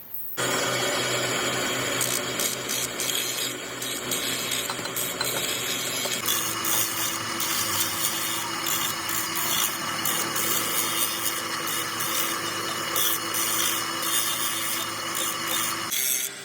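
A power tool working on metal, with a steady whine joining in about six seconds in.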